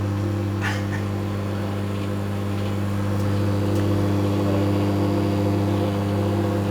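Microwave oven running with a steady electrical hum while a CD cooks inside, with a few faint snaps from the CD's metal layer arcing.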